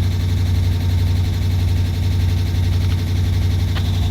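2018 Dodge Charger's Hemi V8 idling steadily, now able to start and run with the faulty rack-and-pinion unplugged from the network. A small click near the end.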